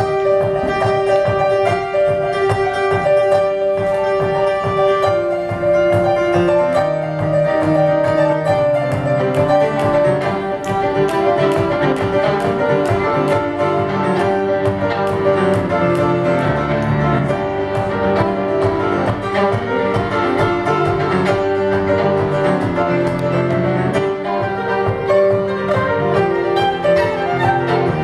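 A fiddle playing a tune with piano accompaniment, held bowed notes over a moving piano bass line.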